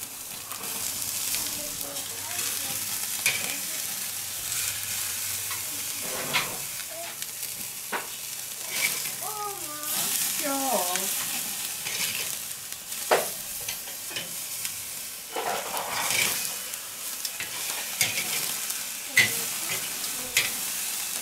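Pork belly slices and steaks sizzling directly over hot charcoal on a kettle grill as they are seared crisp. Metal tongs click and scrape on the grate at intervals as the meat is turned and moved.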